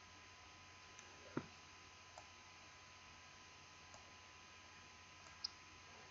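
A handful of faint, isolated computer mouse clicks over a low steady electrical hum. The loudest is a duller knock about a second and a half in, and a sharper click comes near the end.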